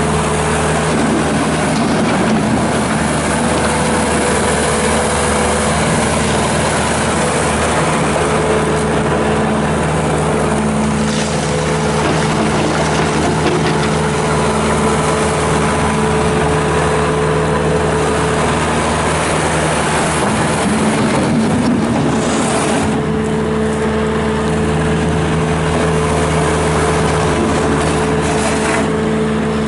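Bobcat S650 skid steer's Kubota diesel engine running steadily. Its note dips and wavers briefly about two-thirds of the way through, then settles back.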